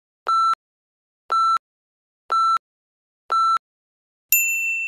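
Countdown timer's last-seconds beeps: four short identical electronic beeps, one a second. About four seconds in, as the count reaches zero, a higher-pitched continuous end-of-timer alarm tone starts, loudest at its onset.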